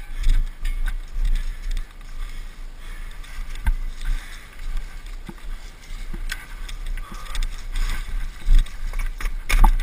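Bicycle ridden over bumpy grass: a steady low rumble of wind on the microphone, with frequent knocks and rattles from the bike jolting over the ground, the loudest jolt near the end.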